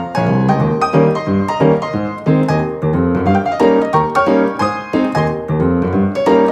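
Background piano music: a steady flow of quickly struck notes and chords.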